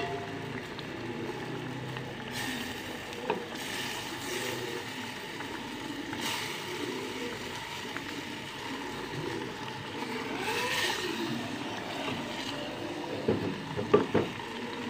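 Steady hiss of a lit gas burner under a simmering curry in a clay handi, with a few knocks of a spatula and eggs against the clay pot, clustered a second or two before the end.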